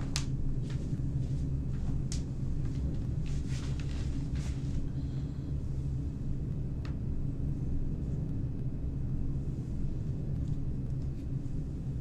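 A steady low rumble that holds at the same low pitches throughout, with a few faint short clicks scattered over it, the sharpest just at the start.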